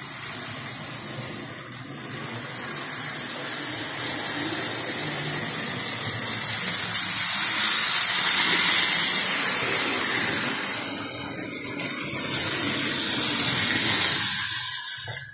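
Lionel O-27 model train running on its three-rail track: a steady rushing whir of the electric motor and metal wheels, growing louder about halfway through and again near the end, then cutting off suddenly.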